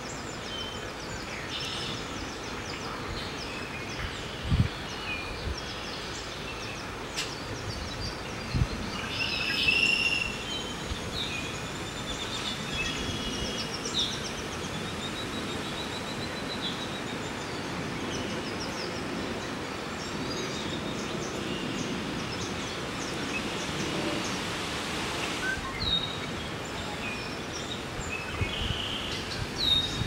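Steady open-air background hiss with scattered bird chirps and calls, including a short trill, and two dull low thumps in the first ten seconds.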